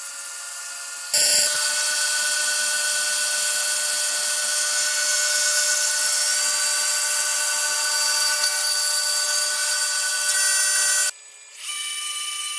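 Bridgeport CNC mill's end mill cutting the edge of a 3/4-inch MDF plate: a steady high-pitched machining whine over a hiss of cutting. It jumps louder about a second in and breaks off briefly near the end, then comes back on a different pitch.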